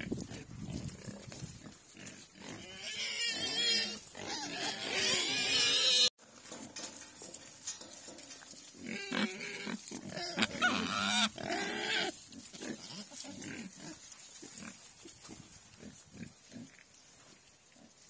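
Large Black pigs calling with high, wavering squeals a few seconds in, which cut off suddenly about six seconds in, and again around ten seconds. Softer snuffling follows as they nose through the straw.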